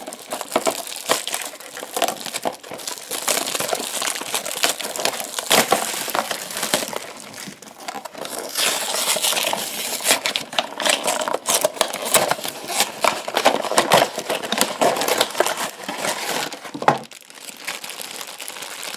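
Funko Mystery Minis blind-box packaging being opened and handled: cardboard boxes torn open and the plastic bags inside crinkled, a dense, irregular run of crackles and rustles with one sharp snap near the end.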